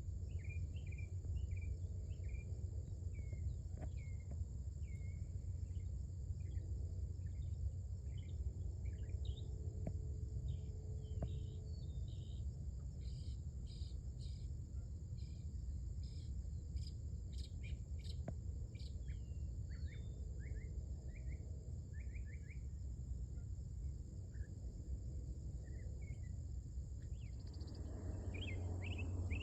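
Northern mockingbird singing, a long run of short, varied chirps and trills, each phrase repeated a few times before switching to another. A steady high insect drone runs underneath.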